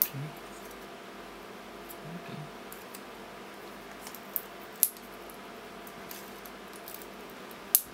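Pliers working nickel connecting strips off a pack of 18650 lithium-ion cells: a few sharp metallic snaps and clicks, one at the start, two close together just under five seconds in, and one near the end, with quiet room tone between.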